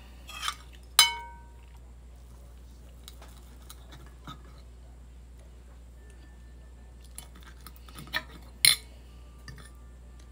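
Fork clinking and tapping on a plate during a meal: one sharp ringing clink about a second in, light taps and scrapes, then two more clinks near the end.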